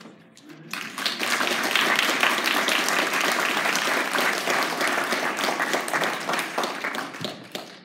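Congregation applauding: dense clapping that starts about a second in, holds steady, and tapers off near the end.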